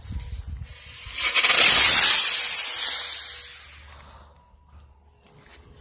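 Two-color spaceship consumer firework burning with a loud rushing hiss of sparks, swelling in about a second in and dying away over the next few seconds.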